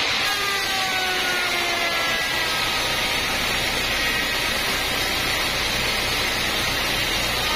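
Homemade band sawmill running with its blade cutting lengthwise through a teak log: a steady, loud machine din. Faint whining tones slowly drop in pitch over the first couple of seconds.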